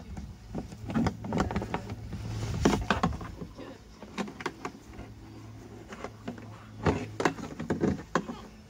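Green plastic watering can knocking and clattering as a puppy bites and tugs at it: a run of irregular sharp knocks and clicks, busiest in the first few seconds and again near the end, over a low steady hum.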